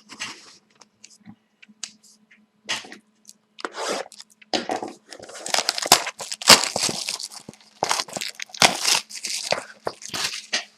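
Tearing open the wrapping of a sealed box of hockey trading cards, with crinkling and rustling of the wrapper and cardboard that grows busier and louder about halfway through.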